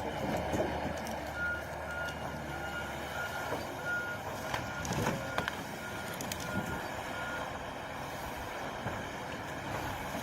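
Reversing alarm of a forestry forwarder beeping about twice a second for several seconds over the machine's running engine, with a few knocks near the middle.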